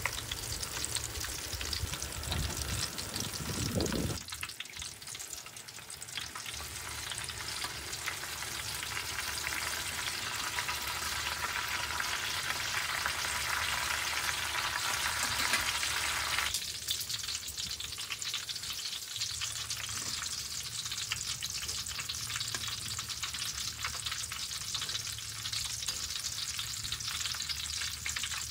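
Strips of eggplant deep-frying in hot oil: a steady sizzle made of many small pops. The sound changes abruptly about four seconds in and again about sixteen seconds in.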